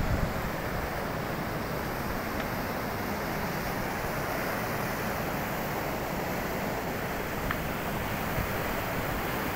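Steady rushing of the Bhagirathi's glacial meltwater torrent near its source at the Gaumukh glacier.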